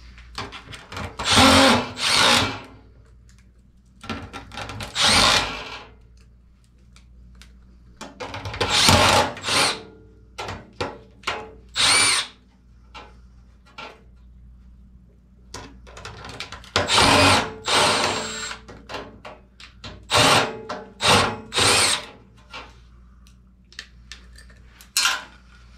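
Cordless driver with a long nutsetter bit running screws into a furnace collector box in short bursts, about nine runs of under a second each. Small metallic clicks between the runs come from the screws and sheet metal being handled.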